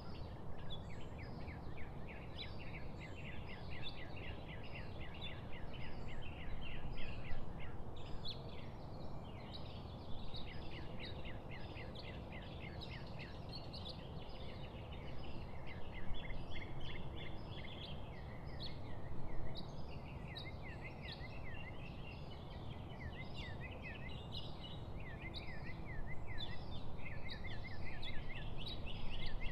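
Songbirds chirping and singing in quick, high, overlapping runs of short notes, over a steady low outdoor rumble.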